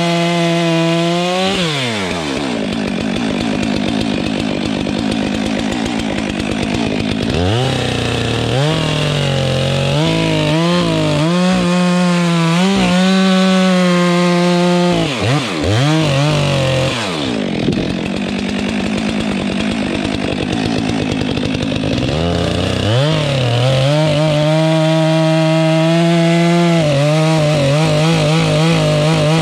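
Stihl MS 462 two-stroke chainsaw running hard as it cuts through logs. Its engine pitch drops and climbs back several times as the throttle and the load in the cut change.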